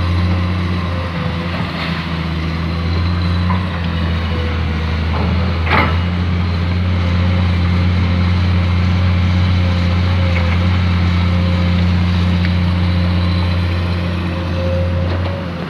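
Excavator's diesel engine running steadily under work, with a single clank about six seconds in.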